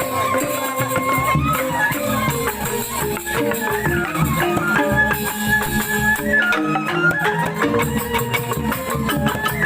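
Balinese joged bumbung gamelan music: bamboo-tube instruments playing a busy, dense pattern under a held melody line that steps up and down.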